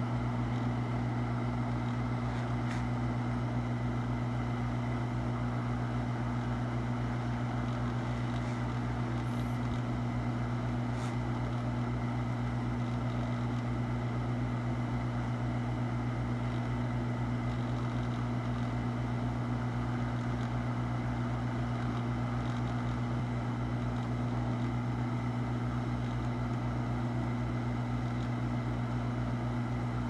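Hot air rework station blowing a steady stream of hot air onto a graphics card's power-connector solder joints to desolder them: a constant airflow hiss over a low, even hum.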